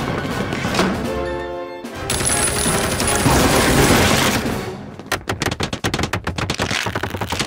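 Cartoon sound effects over music: machine-gun fire and the crash of a wooden barn being blown apart, then from about five seconds in a rapid clatter of many hammers on timber as the barn is rebuilt.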